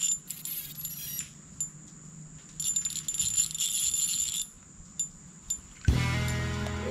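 High, shimmering jingling in two bursts of a second or two each, over a thin steady high tone. Background music with guitar and drums comes in near the end.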